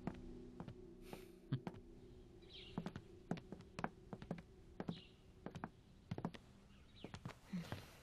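Footsteps on a hard floor: an irregular string of soft taps, a few a second, with a few faint high bird chirps among them.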